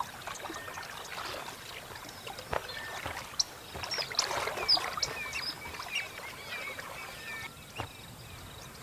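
Water splashing and sloshing in shallow water, with a few sharper splashes in the middle. Short high chirps go on throughout.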